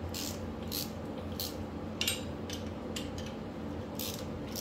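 Hand ratchet with a socket extension clicking in short bursts as its handle is swung back and forth, running a bolt down into the engine block.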